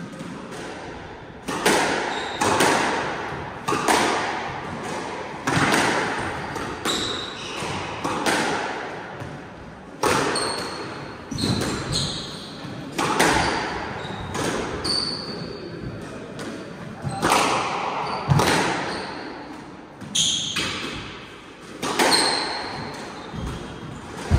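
Squash rally: the ball cracks off racquets and the court walls about once a second, starting about a second and a half in, each hit echoing in the enclosed court. Short high squeaks of shoes on the wooden floor come between the hits.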